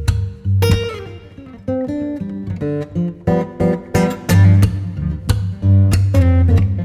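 Background music of plucked acoustic guitar, notes picked one after another over a deep bass line.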